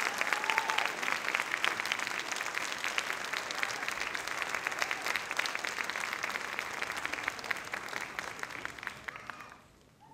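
Theatre audience applauding, the clapping dying away near the end.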